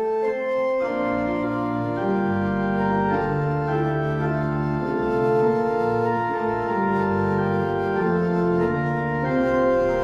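Organ playing the introduction to a hymn in held chords that change every second or so, with no singing yet.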